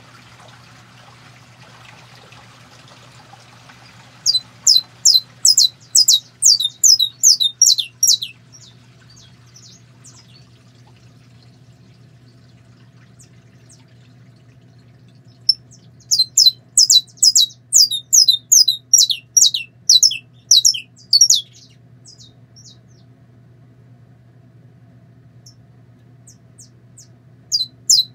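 Caged saffron finch singing in three bouts of sharp, down-slurred notes repeated about three a second, each bout lasting four to six seconds, with pauses between. A faint steady low hum runs underneath.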